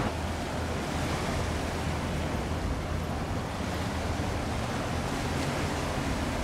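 Steady wind and water noise, with a low steady hum underneath.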